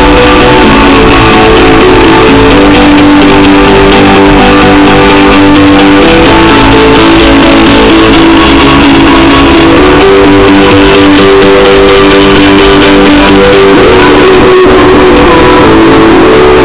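Guitar-driven music played very loud through a car audio system's door panel of midrange speakers. The level stays pinned at full scale throughout, so the recording is overloaded.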